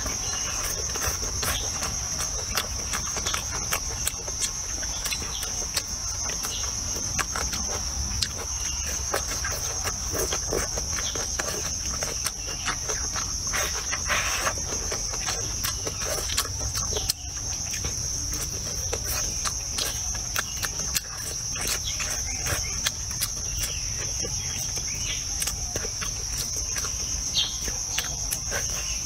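A steady high-pitched insect chorus, with close-up chewing and eating, many small clicks scattered throughout.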